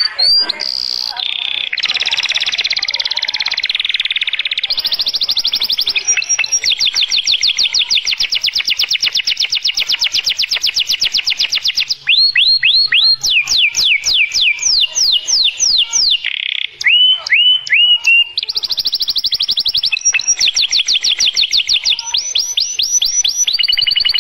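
Domestic canary singing a long, loud song made of very fast trills, with a run of slower, falling whistled notes about halfway through.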